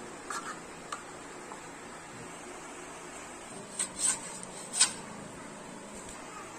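A few sharp taps or clicks over a steady low hiss: small ones near the start, then a quick cluster of louder ones about four to five seconds in.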